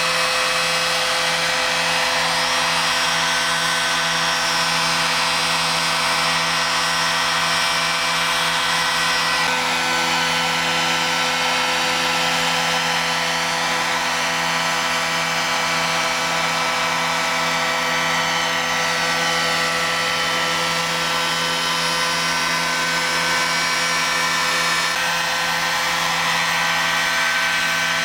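Large radio-controlled scale model helicopters flying and hovering: a steady, high-pitched engine whine made of several tones at once over the rotor noise, with some tones sliding up and down as the models move about.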